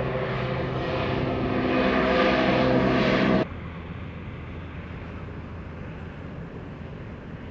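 A climbing De Havilland Canada Dash 8-400's Pratt & Whitney PW150A turboprops and propellers give a loud, steady drone with several propeller tones. About three and a half seconds in the sound drops abruptly to a much fainter drone.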